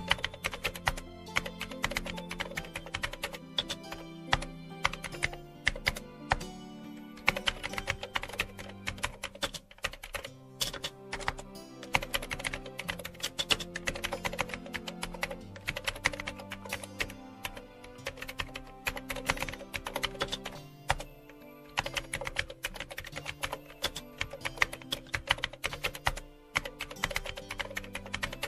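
Rapid computer-keyboard typing clicks, quick and uneven, over soft background music with held notes.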